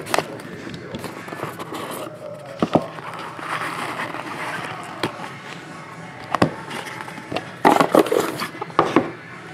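Rigid plastic card holders clicking and scraping against each other and a cardboard box as a stack is lifted out and set down on a table, with rustling from the handling. The clicks come scattered, and a quick run of them comes near the end.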